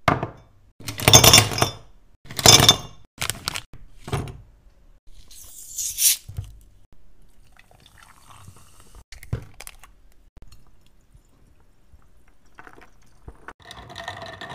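Ice cubes and gummy candies dropped into a glass mug, clattering and clinking loudly several times, then a short hiss and soda poured over the ice. Near the end a straw stirs the ice with light clinks against the glass.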